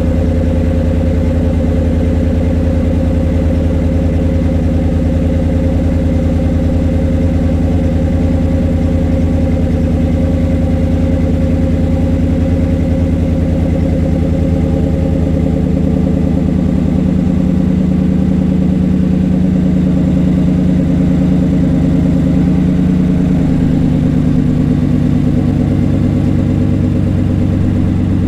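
2016 GMC Sierra's 5.3-litre V8 idling cold after a cold start, heard at the tailpipe through a 3-inch Thrush welded muffler with the resonator deleted: a steady exhaust note.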